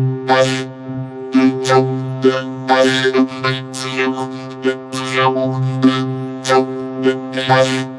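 Cartoon chorus of sneezes and hiccups run through a vocoder effect, turning them into a buzzing, synth-like drone on a few fixed pitches, with short sharp bursts about twice a second.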